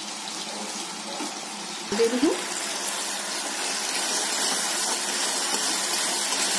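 Sugar-and-water syrup boiling hard in a kadhai on a high flame, a steady bubbling hiss as the sugar melts. About two seconds in there is a brief knock, and after it the bubbling is a little louder.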